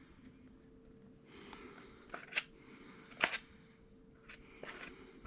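A few sharp clicks and taps from handling tools and parts, the two loudest about two and a half and three seconds in, over a faint steady hum.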